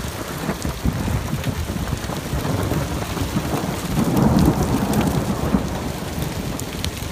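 Hail and heavy rain pelting down: a dense hiss full of sharp ticks from hailstones striking, swelling louder with a low rumble about four seconds in.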